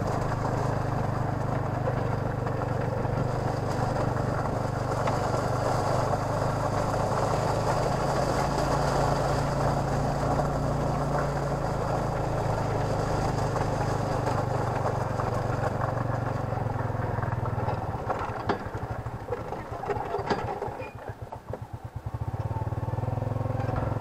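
Motorcycle engine pulling a tuk-tuk passenger carriage, running steadily while under way. About eighteen seconds in it throttles back and runs unevenly, then picks up again near the end.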